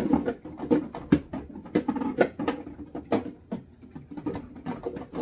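Condiment bottles and jars being moved around and set onto refrigerator shelves, knocking and clinking against each other and the shelving in a quick, irregular run of knocks.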